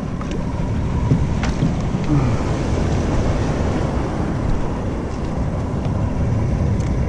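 Steady low rumble of a boat's motor running, with a faint steady hum above it and a few small clicks.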